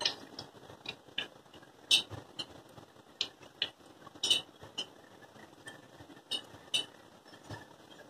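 Hobart CNA-S rack conveyor dishwasher moving a plastic dish rack out over the outfeed rollers, with about a dozen sharp, irregularly spaced clicks and clacks of the rack and its drive.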